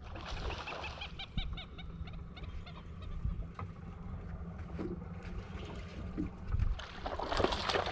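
A bird calling in a quick run of pitched notes about a second in, over a steady low rumble of wind and water. A brief rush of noise comes near the end.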